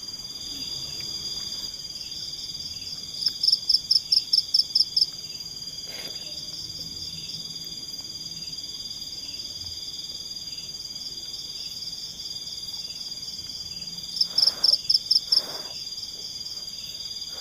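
Night insects trilling steadily on two high pitches, and twice a loud run of rapid pulsed calls, about eight or nine a second for a second or two: a few seconds in and again near the end.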